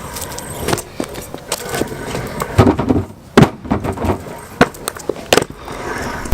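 Stunt scooter riding on skatepark ramps: hard wheels rolling on wet concrete, with a string of sharp clacks and knocks from the deck and wheels hitting and landing, the loudest in the second half.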